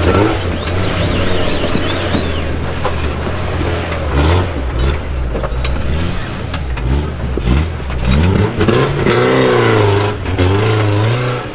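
Off-road truck engine revving hard, its pitch rising and falling again and again as it is worked up the course, with sharp knocks and clatter mixed in.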